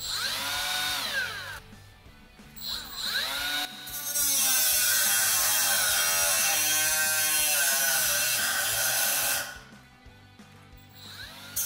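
Milwaukee M12 cordless right-angle die grinder with a cut-off wheel, on its top speed setting, twice spinning up and winding down. It then grinds steadily through a metal bar for about five seconds before it cuts out, the tool's stall cut-out under cutting pressure, and it starts cutting again at the very end.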